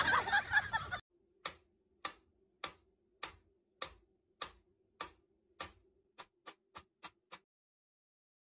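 Mechanical pendulum metronome ticking steadily, about one sharp tick every 0.6 seconds, the ticks coming about twice as fast for the last second or so before stopping. A brief louder burst of other sound fills the first second.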